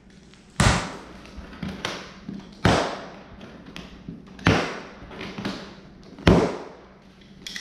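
A large cardboard shipping box being worked open by hand on a tile floor: four sharp, loud thuds about two seconds apart, with softer taps between.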